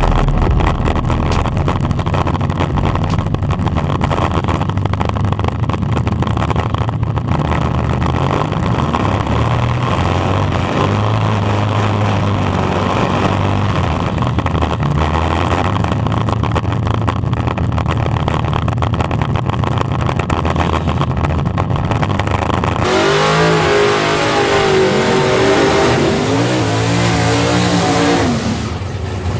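Drag-racing cars' engines running hard at full throttle in a street grudge race. About three-quarters of the way through, the sound changes to a wavering engine note that rises and falls.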